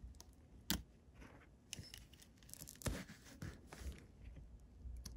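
Faint handling of a small plastic model-locomotive pancake motor and a small screwdriver: scattered sharp clicks with soft scraping as the brush plates and springs are worked on.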